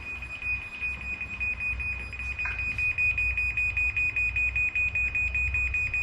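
Chamberlain MyQ Smart Garage Hub's warning beeper sounding a rapid, even series of high-pitched beeps. This is its alert that the garage door is about to close.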